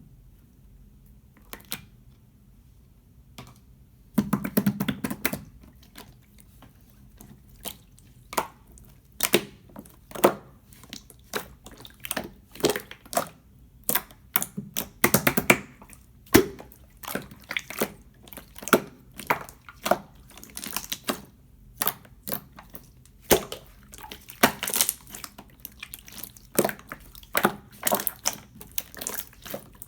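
Clear slime being pressed and squished by hand, giving sharp wet clicks and pops about one to two a second, with longer squishy stretches now and then. The first few seconds are quiet.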